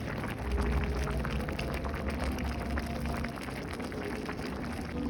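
Food cooking in a pot: a steady crackling, bubbling patter over a low rumble.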